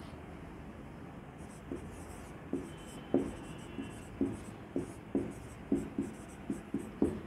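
Writing on a board: a run of short scratchy strokes and taps, starting about a second and a half in and coming roughly twice a second.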